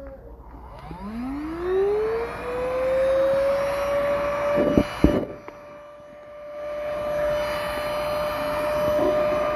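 VersLife S7 Plus cordless stick vacuum's motor spinning up: a whine rising in pitch over about two seconds, then running at a steady high whine. Two short knocks come about halfway through.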